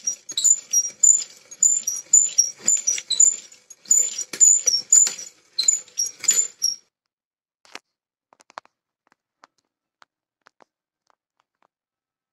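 Hand brace turning an auger bit through wood: rhythmic high squeaks, about three a second, over the crunch of the bit cutting. The boring stops about seven seconds in, leaving only a few faint clicks.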